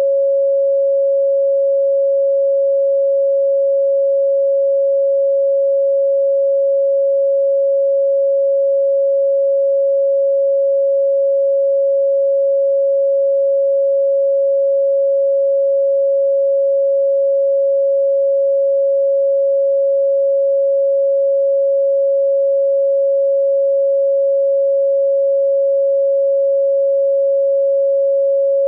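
Steady, unchanging electronic sine tone at about 552 Hz, with a thinner high tone near 4 kHz above it.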